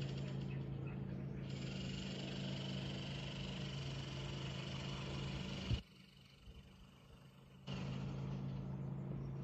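A steady low mechanical hum, like an idling motor, with a fainter high hiss over it. It stops abruptly with a click about six seconds in and starts again about two seconds later.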